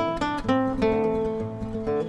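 Music: an acoustic guitar picking out a melody of single plucked notes, a new note every quarter to half second.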